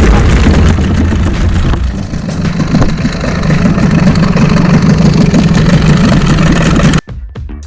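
Boat engine running loudly, its low sound shifting higher about two seconds in; the sound breaks off suddenly near the end.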